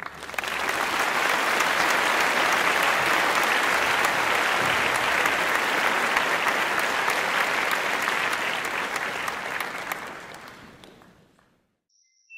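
Applause, steady, fading out near the end.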